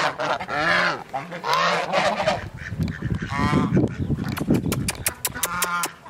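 A flock of domestic geese honking in separate calls every second or so. A rough rumble and a quick run of sharp clicks come in the middle, between the calls.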